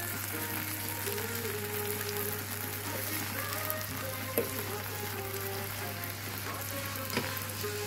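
Sausage and onion slices frying on an electric teppanyaki griddle plate, a steady sizzle, with a plastic spatula knocking sharply against the plate twice, about halfway and near the end.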